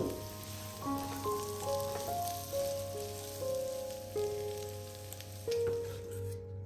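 Chicken and mushroom pieces sizzling as they fry in a wok, a steady hiss that stops shortly before the end, under a soft background melody.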